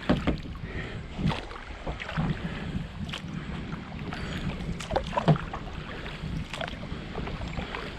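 Kayak moving on fast water: water rushing and slapping around the hull with irregular sharp knocks and splashes, over a steady wind rumble on the microphone.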